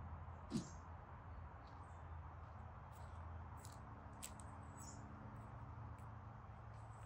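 Quiet ambience: a faint steady low hum with a few short high chirps scattered through, and a single short low thump about half a second in.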